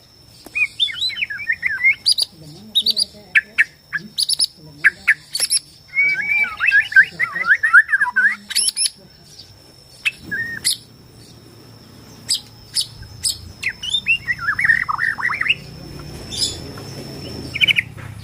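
Borneo white-rumped shama (murai batu) singing: rapid warbling phrases broken by sharp, clicking chatter notes. A faint steady high tone sounds behind the song until near the end.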